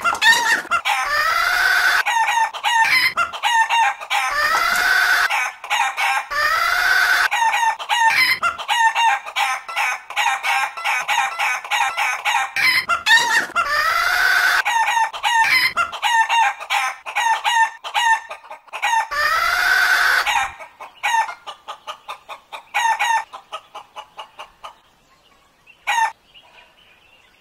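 Chicken clucking rapidly and squawking in long, drawn-out crow-like calls every couple of seconds. The calls die down to scattered clucks about three quarters of the way through, with one last short squawk near the end.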